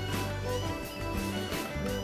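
Instrumental background music with held bass notes under a melody.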